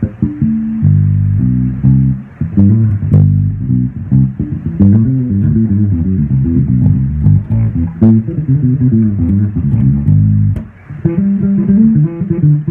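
Bass guitar playing a run of plucked low notes that change pitch quickly, with a brief break about three-quarters of the way through.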